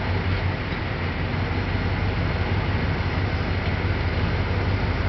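John Deere 7700 combine running steadily while harvesting corn: a low engine drone with a rushing noise over it.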